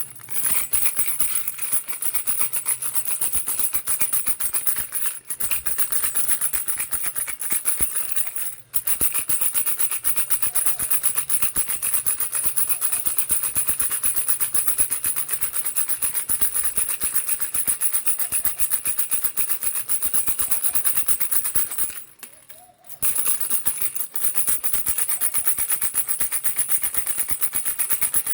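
Baby's toy rattle shaken continuously, a fast dense rattling of loose pieces inside. It breaks off briefly about 8 seconds in and stops for about a second near 22 seconds in before going on.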